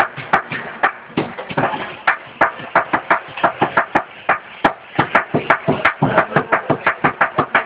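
Cleavers chopping sisig on a chopping board in a fast rhythmic beat, about five or six sharp knocks a second, some strokes harder than others.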